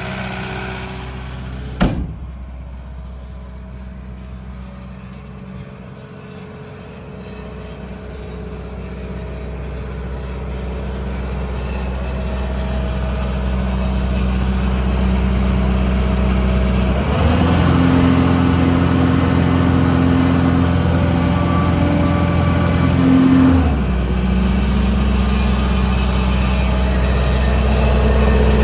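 KAESER M 115 N mobile compressor with its Kubota V3800 four-cylinder diesel running, with a sharp knock about two seconds in. The engine note builds in loudness. About seventeen seconds in it speeds up for around six seconds, then drops back to a lower steady speed.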